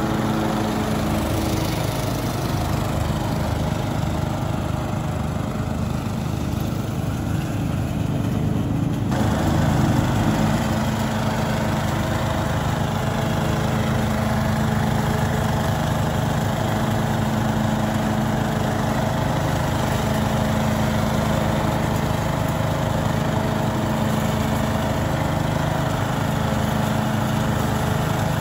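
Zero-turn riding mower and a tow-behind leaf vacuum's engine and blower running together steadily while the vacuum draws leaves up through its hose. The tone shifts about nine seconds in.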